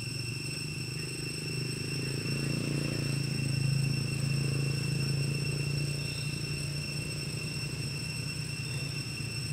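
Low hum of a distant engine that grows louder about three to five seconds in, then eases off, over steady high-pitched whining tones.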